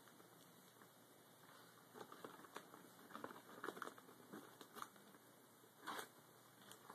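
Faint, irregular rustling and crinkling of a paper gift bag as a pug noses and paws into it, with a slightly louder rustle about six seconds in.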